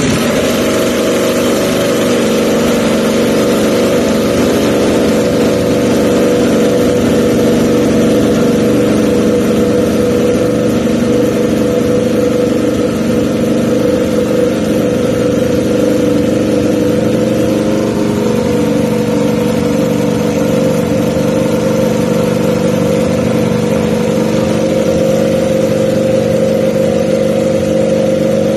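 Ducati Panigale V4 R World Superbike race bike's V4 engine idling loudly and steadily after its start, an even, unbroken drone through its race exhaust.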